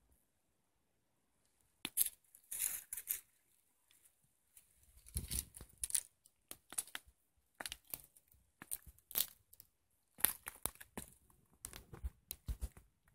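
Footsteps crunching over loose stones and dry grass on a mine dump: irregular crackling steps with a few heavier thuds.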